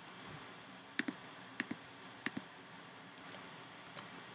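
Typing on a computer keyboard: a few separate key clicks about half a second apart, then a quick run of fainter taps near the end.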